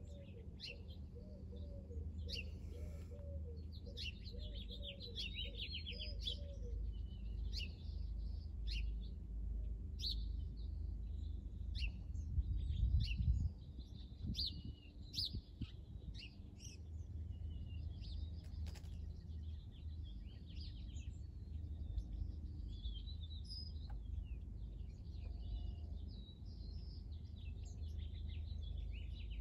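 Small birds chirping and singing in many short calls over a steady low background rumble, which swells for a second or so around twelve seconds in.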